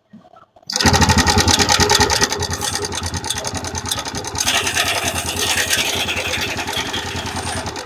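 TVS Raider 125's single-cylinder engine running at idle, a fast, even beat of pulses that cuts in suddenly about a second in.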